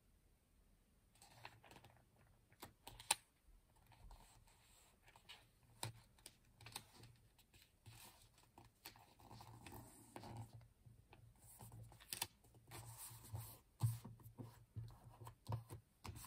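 Faint paper handling as a large sticker sheet is lifted and pressed down onto a planner page: soft rustles and crinkles with scattered small taps of fingers on the paper.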